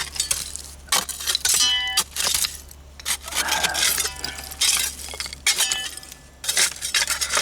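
Old glass bottles and broken glass clinking and knocking together as they are dug out of a bottle dump, a run of sharp clicks and scrapes with two clear ringing clinks, about two seconds in and near the end.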